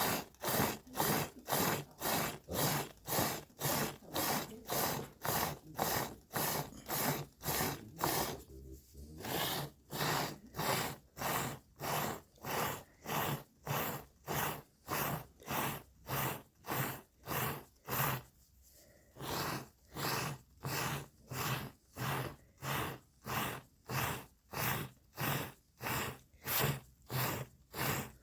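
A cow making a steady, rhythmic rasping sound, about three strokes every two seconds, with two short pauses.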